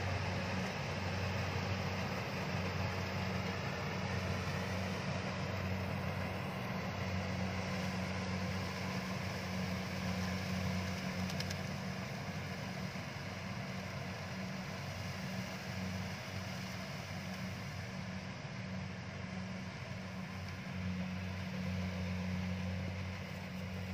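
Kubota DC-70 combine harvester running steadily as it cuts rice: a constant low engine hum with even mechanical noise above it.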